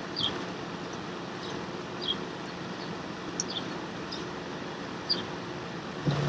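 Steady background noise with faint, short high chirps about once a second and a few light knocks.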